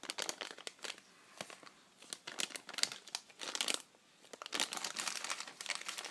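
Plastic bags of miniatures being handled, crinkling in several bursts with short pauses between.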